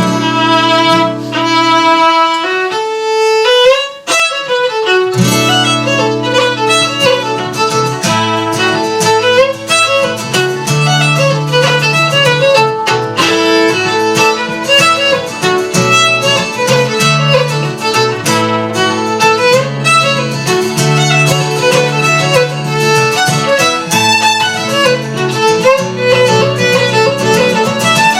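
Fiddle playing a fast traditional tune with guitar accompaniment. There is a brief break about four seconds in, then the tune carries on at full pace.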